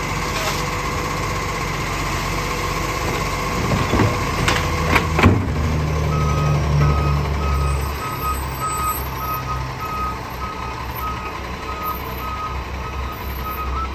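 Iveco side-loader garbage truck running, its engine and hydraulics working the automated arm as it dumps a wheelie bin, with a few sharp knocks about four to five seconds in as the bin is shaken out and lowered. From about six and a half seconds a high beep repeats evenly, about twice a second: the truck's warning alarm.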